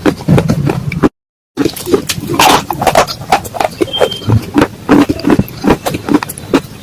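Dry clay cracking and crunching: a fast, irregular run of sharp cracks and crackles, cut off for about half a second just after a second in before resuming.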